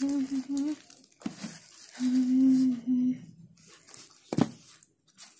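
A girl humming a few held notes, two short hums near the start and a longer one about two seconds in, while a doll's cloth dress rustles in her hands; a single sharp click comes about four seconds in.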